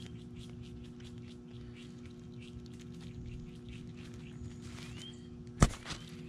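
Small animals at scattered nuts and fruit: a run of faint ticks and scratches, with a short rising bird chirp about five seconds in. A sharp knock about five and a half seconds in, followed by a smaller one, is the loudest sound.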